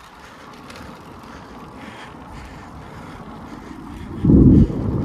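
Wind rushing over a phone microphone on a moving bicycle, with a loud, low buffeting blast for about half a second a little after four seconds in.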